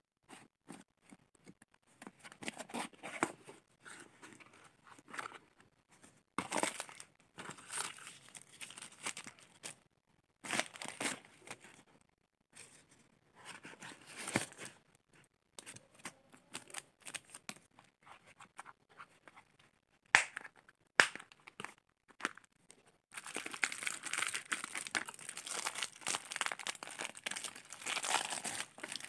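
Unboxing handling noise: scissors cutting open a cardboard box, then paper crumpling and tearing in irregular bursts. Two sharp clicks come about two thirds of the way through. Near the end, plastic jewellery packets crinkle without a break.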